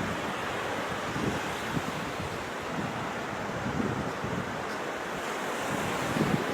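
Wind buffeting the microphone over the steady wash of sea surf on a beach.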